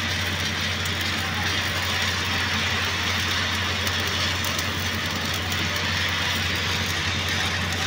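Stick welding arc burning on a steel pipe joint, a steady crackling hiss, over a steady low hum.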